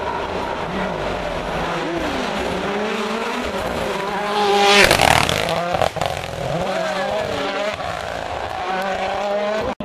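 A rally car's engine revving hard through the gears as it comes up the road. It passes close by with a loud rush about halfway through, then pulls away, its note climbing and dropping with each gear change.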